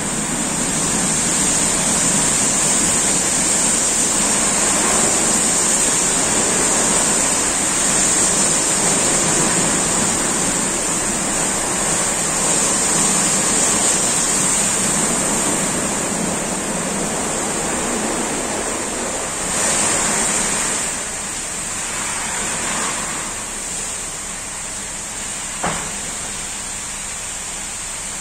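Tunnel car wash jets spraying water onto a car: a loud, steady, high hiss over the low hum of the wash machinery. It swells briefly after about twenty seconds, then eases off, and there is a single click near the end.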